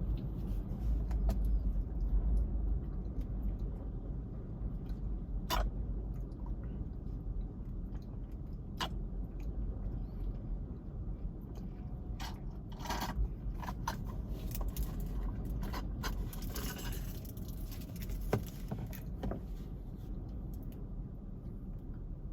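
Steady low rumble of wind and surf on an outdoor microphone, with scattered clicks and scrapes from the camera being handled.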